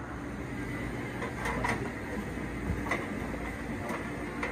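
Steady background hum and hiss of an aquarium shop, with a few short clicks and knocks: a cluster about one and a half seconds in, then single ones near three and four seconds.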